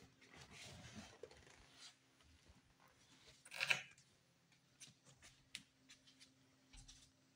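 A quiet room with faint rustling and scattered small clicks, and one louder, brief rustle about three and a half seconds in.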